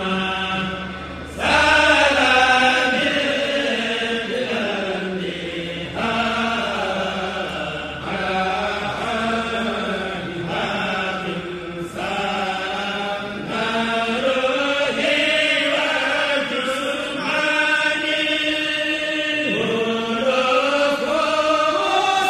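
Voices chanting a Mouride xassida, an Arabic Sufi devotional poem in praise of the Prophet, in melodic phrases of a few seconds each with short breaks between them.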